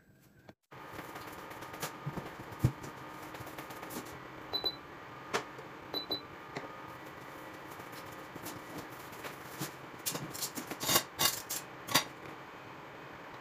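Infrared cooktop's control buttons beeping, two short double beeps about a second and a half apart, among scattered knocks and one loud thump. Near the end, a frying pan clatters as it is set down on the glass top.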